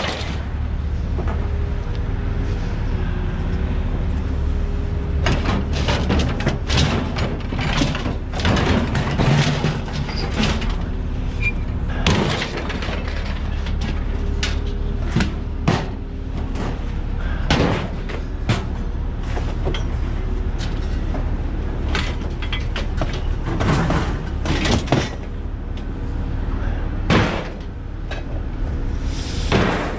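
Scrap metal, aluminum and sheet steel, clanking and banging as it is pulled about and thrown, many irregular knocks, some ringing briefly, over a steady low hum.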